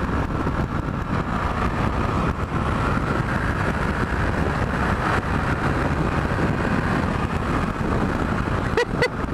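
Honda CB500F's parallel-twin engine pulling hard under full throttle at highway speed, with heavy wind noise on the microphone, steady throughout.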